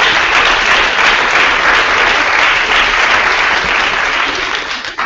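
Audience applauding steadily, then cutting off quickly near the end.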